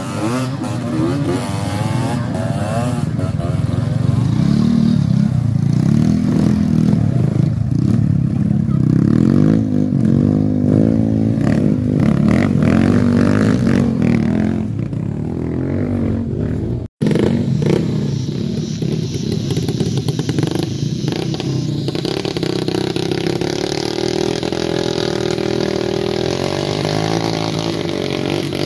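Motorcycle engine running under load, its pitch rising and falling as the throttle is worked, with some clatter. The sound drops out for an instant about two-thirds of the way through.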